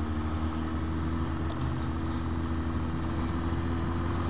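Motorcycle engine running steadily at low speed, a constant low engine note with no revving.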